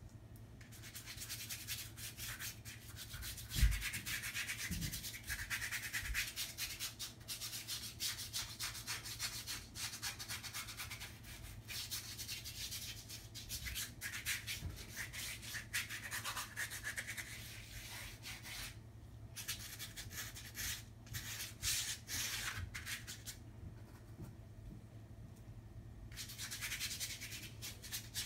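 Rough, scratchy rubbing of acrylic paint being scrubbed across a large sheet of paper in quick repeated strokes, with a single low thump about three and a half seconds in. The scrubbing stops briefly twice and starts again near the end.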